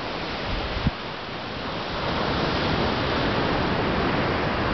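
Ocean surf breaking on the beach, a steady rushing noise that grows louder about two seconds in. There is a brief low thump about a second in.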